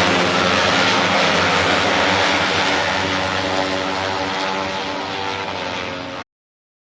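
A steady engine drone, a pitched hum over a rushing noise, that slowly fades and then cuts off abruptly about six seconds in.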